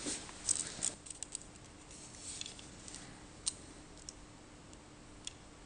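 Light, sharp clicks and taps from handling a steel tape measure and a threaded steel screw. The clicks bunch together in the first second, then come singly and sparsely, over a faint steady hum.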